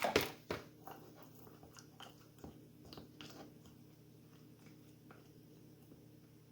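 Frozen blueberries being spooned into a small dish of batter: a quick cluster of spoon clicks and knocks against the dish, then scattered lighter taps and crunches over the next few seconds that die away.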